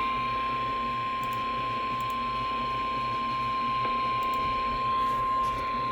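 NOAA Weather Radio warning alarm tone: a single steady high tone near 1050 Hz, held unbroken over radio hiss. It is the signal that a warning broadcast follows.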